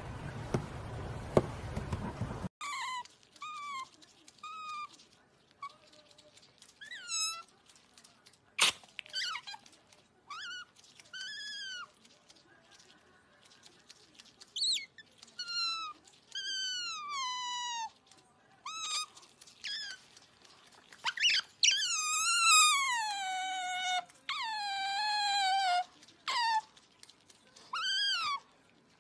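Otter pup calling with repeated high-pitched squeaking chirps. Most of them fall in pitch, and a few are longer with a wavering tone; the loudest come about two-thirds of the way through. The calls follow a couple of seconds of steady hiss.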